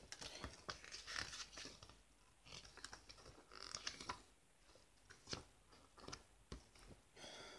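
Faint rustling and small crinkles of paper as the pages of a thin booklet are turned by hand, heard as a string of short separate rustles.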